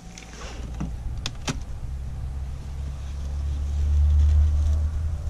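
Two sharp clicks about a second and a half in as a polyurethane-foam beehive lid is lifted off, over a steady low rumble that swells to its loudest around four seconds in.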